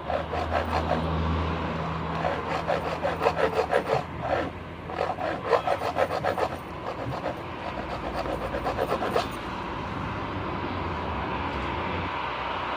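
Hand tool rasping back and forth in quick, even strokes, several a second, as a broken key is worked on. The strokes pause briefly near four seconds in and stop about nine seconds in, leaving a steady low hum.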